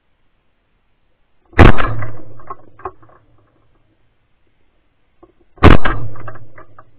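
An over-under shotgun fired twice, about four seconds apart, during a partridge shoot; each loud shot trails off in an echo lasting over a second.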